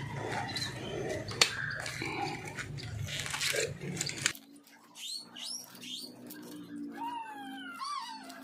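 Hands handling wire, pliers and electrical tape: rustling with sharp clicks. After about four seconds this gives way to an animal's repeated high, arching cries, including one long falling cry and a quick run of short rising-and-falling calls near the end.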